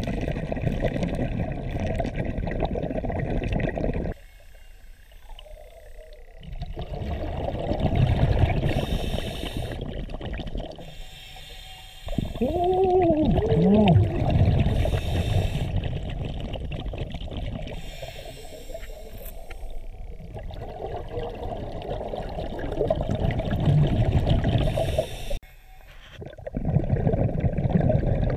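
Scuba diver breathing through a regulator, heard underwater: rumbling bursts of exhaled bubbles every few seconds, with quieter gaps between them. About twelve seconds in, a short stacked tone rises and falls.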